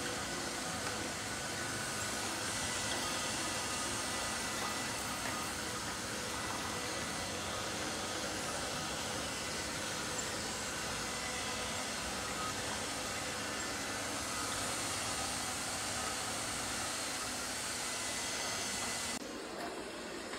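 Robot vacuum running with a steady whirring hiss from its motor and brushes; the sound drops abruptly near the end.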